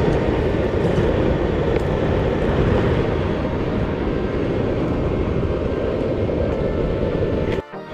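A forge running: a steady, dense rushing noise with a faint steady hum above it, cut off abruptly near the end.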